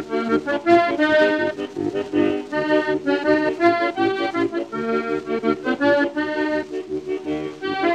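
Background music led by an accordion playing a quick, bouncy melody over a rhythmic accompaniment.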